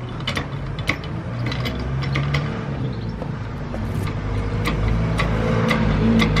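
Hydraulic trolley jack being pumped to lift a car, with sharp metallic clicks about twice a second over a low steady hum that slowly grows louder.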